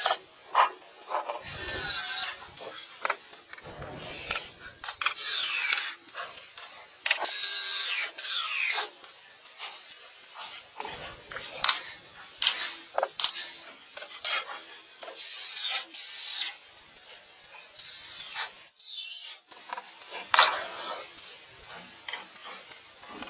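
Hand tool working wood: irregular rasping and rubbing strokes, with sharp clicks and knocks between them.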